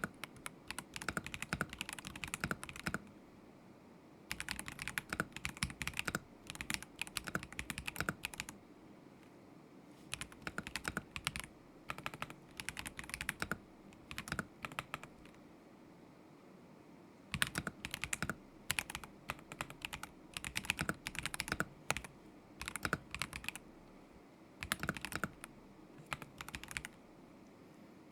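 Typing on a KZZI K75 Pro mechanical keyboard with Moment linear switches: runs of quick keystroke clicks broken by short pauses of a second or two.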